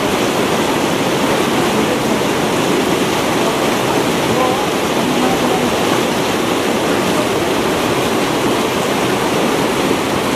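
Shallow mountain river rushing over boulders and small rapids: a steady, even churn of whitewater.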